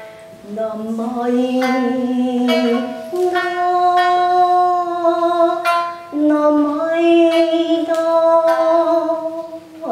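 A woman singing a Japanese song in long, drawn-out held notes that step from pitch to pitch, accompanying herself on a shamisen whose sharp plucks come a few at a time between the sung phrases.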